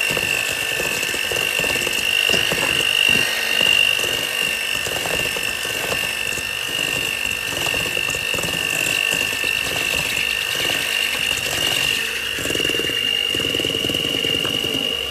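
Electric mixer running steadily with a high whine, beating egg yolks into creamed butter and sugar.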